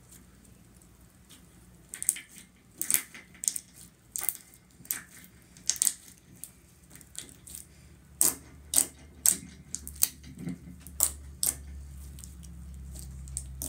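Glossy slime being kneaded, pressed and stretched by hand, giving a quick series of sharp wet clicks and pops that start about two seconds in.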